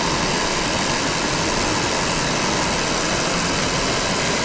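Steady, even rushing background noise of a large train station concourse, holding the same level throughout.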